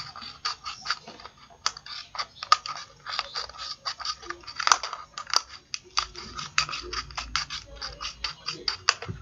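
Small scissors snipping around the cut edge of a thin plastic bottle: a quick, irregular run of short crisp snips and clicks, several a second.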